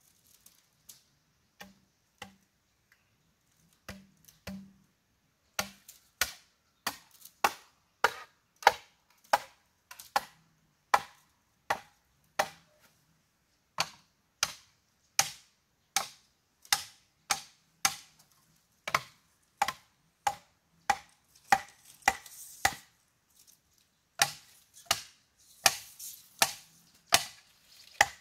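Repeated sharp strikes of a hand tool on bamboo: a few light taps at first, then from about five seconds in a steady run of blows about two a second.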